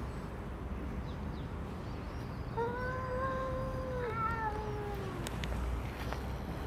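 A cat meowing: one long drawn-out meow about two and a half seconds in, running straight into a second, shorter meow that falls in pitch.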